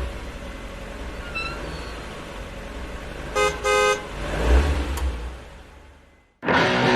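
Car and road noise with a low rumble throughout. A car horn gives two short toots in quick succession about three and a half seconds in. The rumble then swells and fades away, and music starts near the end.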